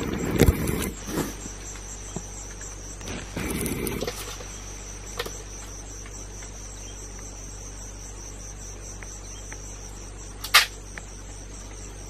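Insects trilling steadily, a high-pitched pulsing chorus throughout. There is rustling in the first second and again about three to four seconds in, and one sharp click about ten and a half seconds in.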